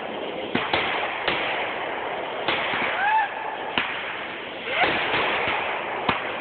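Fireworks going off: a string of sharp bangs at uneven intervals over a steady hiss of burning effects.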